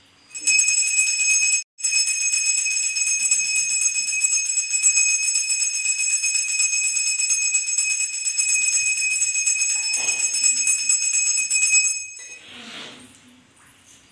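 Brass puja hand bell (ghanti) rung continuously with fast, even strokes, a bright, high metallic ring; it breaks off for a moment about a second and a half in, then rings on and stops about twelve seconds in.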